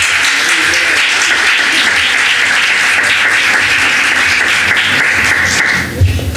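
Audience applauding in a hall, dying away about six seconds in, followed by a single thump near the end.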